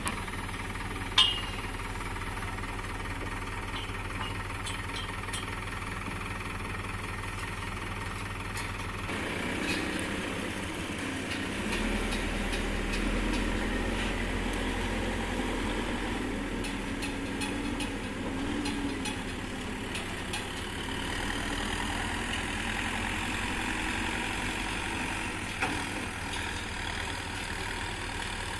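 Diesel engine of a backhoe loader running steadily, growing louder from about nine seconds in. A single sharp knock comes about a second in.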